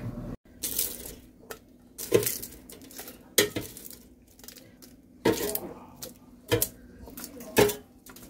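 Metal tongs clattering against an air fryer's basket and a plate while shrimp heads are lifted out, about six separate clinks a second or so apart.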